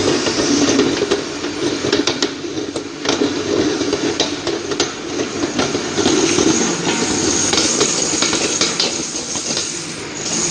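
Date paste grinding machine running with a steady hum, with many irregular sharp clicks and clanks of metal over it.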